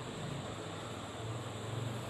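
Steady background hiss with a low, wavering hum: room or line noise, with no voice.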